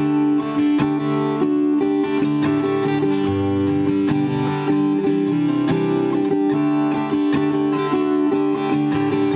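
Ko'olau acoustic guitar with an LR Baggs Anthem SL under-saddle piezo pickup, played through a Schertler David acoustic amp with the EQ flat. It is played continuously with many picked notes ringing over held notes, with a high trebly, quacky piezo edge that the player points out.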